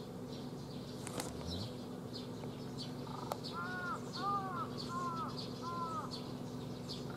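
A crow cawing four times in a row, each caw rising and falling in pitch, over many short high chirps and a steady low hum.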